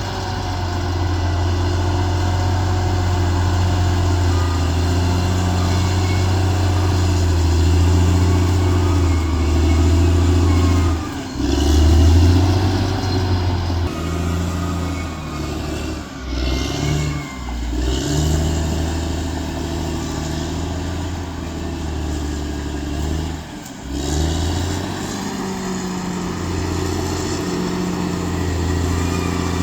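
Bulldozer's diesel engine running under load, its pitch rising and falling as the revs change, with a few brief dips.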